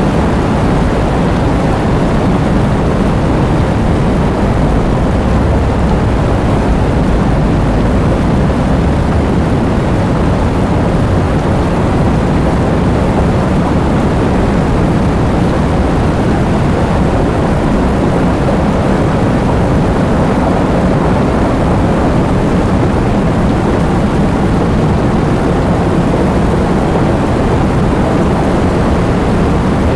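Heavy rain, a steady dense rush that is strongest in the low end.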